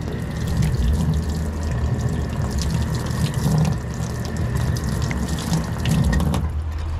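Water running from a utility-sink faucet and splashing over a stainless steel trim molding as it is rinsed clean of polishing compound. The flow cuts off about six and a half seconds in as the tap is turned off.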